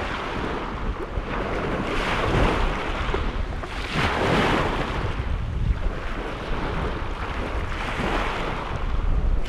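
Lake waves washing in, in repeated surges a couple of seconds apart, with wind rumbling on the microphone.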